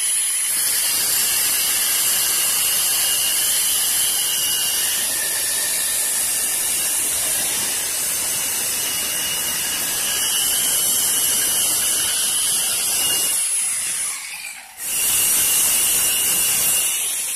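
Angle grinder cutting and grinding steel profile: a steady high whine over loud hissing grinding noise. It drops out for about a second near the end, then starts again.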